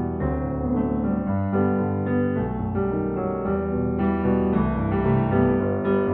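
Background music led by a piano or electric piano playing a steady run of notes.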